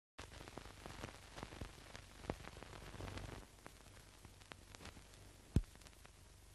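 Crackle and hiss of an old newsreel soundtrack, with scattered clicks and pops over a low hum and no programme sound; one louder pop comes about five seconds in.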